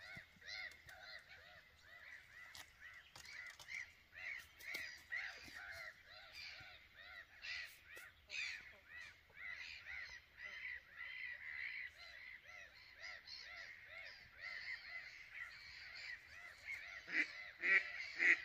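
A flock of gulls calling, many short calls of the same shape overlapping at several a second, with ducks quacking louder near the end.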